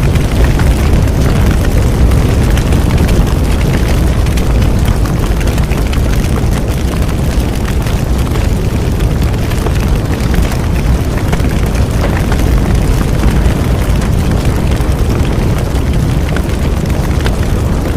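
Bonfire burning with a steady low roar of flames and constant small crackles and pops from the burning wood.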